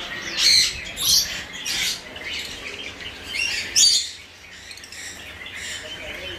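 Conures giving loud, harsh squawks, about five in the first four seconds, then quieter.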